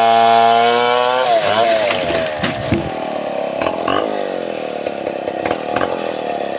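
Chainsaw engine running at high, steady revs; a little over a second in, its pitch drops and it carries on lower and rougher.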